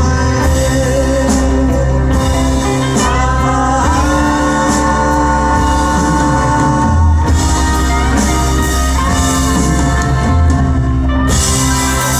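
Live band music with a singer, loud and steady, with strong bass.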